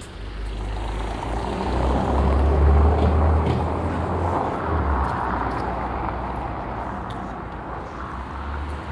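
A car passing along a cobblestone street, its tyre and engine noise swelling to a peak about three seconds in and then fading slowly.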